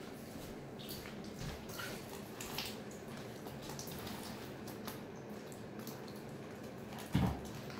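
Water splashing and dripping as a mink swims in a small glass tank and climbs out dripping onto a vinyl pool liner, with several short splashes and one louder thump near the end.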